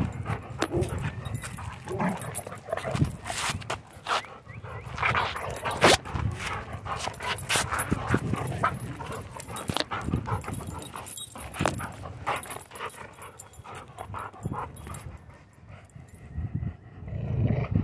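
German Shorthaired Pointer vocalizing while tugging on a rope toy, heard close to the microphone, with an irregular run of sharp clicks and rustles from the tugging.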